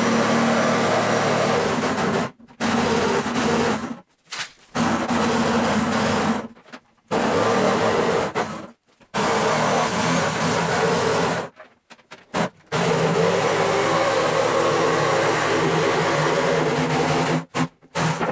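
An old electric jigsaw cutting through OSB board, its motor and blade labouring through the cut. The sawing runs in stretches, cut off abruptly half a dozen times.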